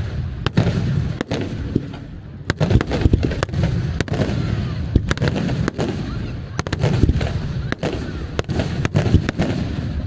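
Aerial fireworks bursting, many sharp bangs in quick, irregular succession over a low rumble.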